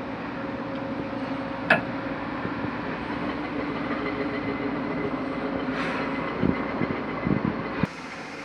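A machine running steadily with a constant hum, a single sharp click about two seconds in and a few knocks near the end; the sound cuts off abruptly shortly before the end.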